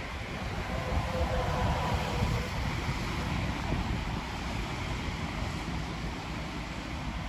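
Wind buffeting the microphone, a steady low rumble. A faint drawn-out tone sounds from about one to two and a half seconds in.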